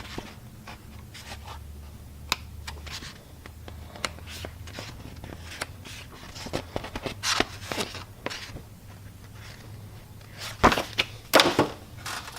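Handling of paper and packaging from a subscription box: scattered sharp clicks and taps with short paper rustles, and a louder cluster of knocks and rustling near the end, over a low steady hum.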